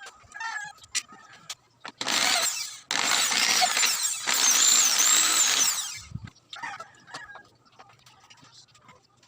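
Electric power tool working plywood panels for a speaker box. It runs in a short burst about two seconds in, then in a longer run of about three seconds, with a high motor whine that rises and falls under load.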